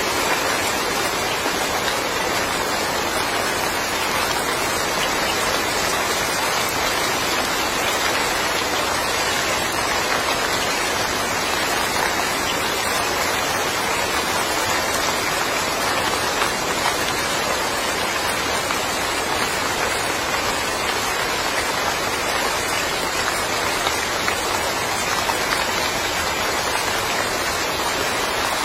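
Steady rain falling, an even hiss of many drops that keeps the same level with no let-up.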